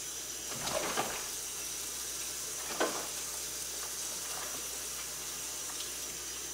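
Tap running steadily into a sink, with a few light knocks and clatters about a second in and again near three seconds.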